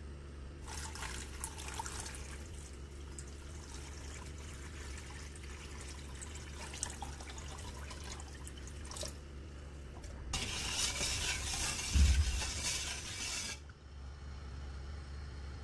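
Water poured from a jug into a stainless steel saucepan onto granulated sugar: a steady pouring splash in two spells, the second louder, with a single thump in the middle of it.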